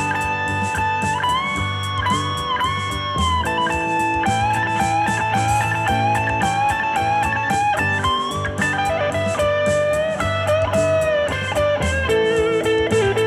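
Lead on a Stratocaster-style electric guitar, improvising blues-rock phrases in A Mixolydian over a backing jam with bass. Notes are bent up and held with vibrato, with a long wavering note in the second half.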